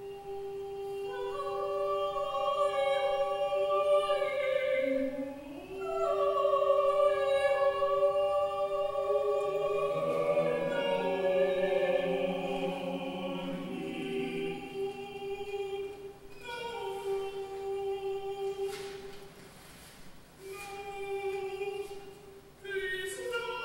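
Opera singing played back through loudspeakers into a reverberant hall: several voices holding long, sustained notes in overlapping lines, with a brief dip about five seconds in.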